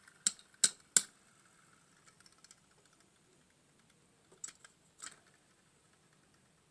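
Sharp clicks and taps of small hard plastic parts being handled: three in quick succession in the first second, a few faint ticks, then two more around the middle.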